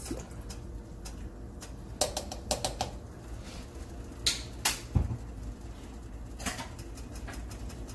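Scattered clicks and knocks of kitchen containers and utensils being handled, in small clusters about two, four and a half and six and a half seconds in, over a steady low hum.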